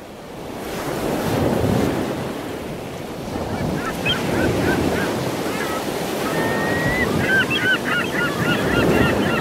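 Surf washing in surges, with birds calling over it from about three and a half seconds in; the calls come thick and fast near the end.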